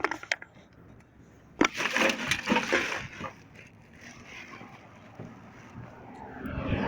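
A bag being shifted and handled, with a burst of rustling and knocks about a second and a half in, after a few clicks at the start.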